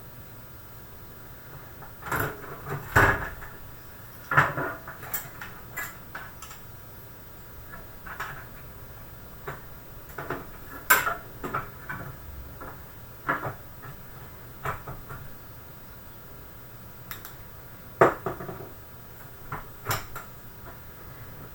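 Graphics card being fitted into a desktop PC case: scattered clicks and knocks of the card and its metal bracket against the case and the PCIe slot, at irregular intervals, with the sharpest knocks about 3, 4, 11 and 18 seconds in.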